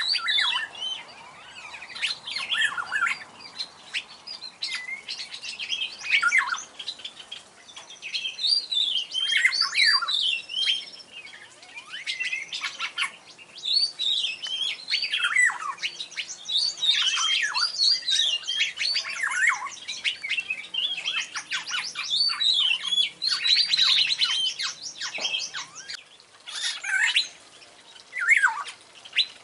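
Black-naped oriole singing actively. Its song is a busy stream of whistles, chirps, fast trills and sharply falling notes, with only short pauses.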